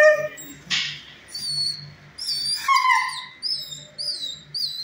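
Dog whimpering: high-pitched falling whines, several in quick succession near the end, with a couple of short harsher sounds in between.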